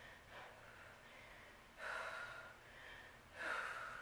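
A woman breathing hard from exertion: faint, heavy breaths, the louder ones about two seconds in and near the end.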